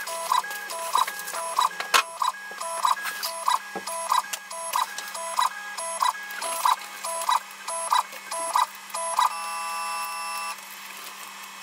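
Weedo ME40 3D printer running its 5 x 5 automatic bed levelling: its stepper motors sing in short pitched bursts about twice a second as the print head moves from probe point to probe point. Near the end comes a longer steady tone that cuts off suddenly. A sharp click sounds about two seconds in.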